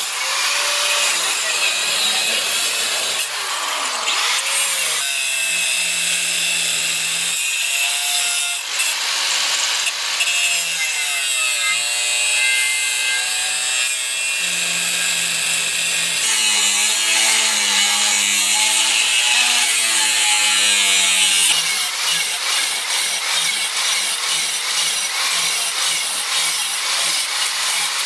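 Abrasive work on a steel knife blade: grinding and sanding, a loud hiss with a wavering pitch, changing every few seconds across short cuts. Over the last several seconds it becomes a fast, even rasping of repeated strokes.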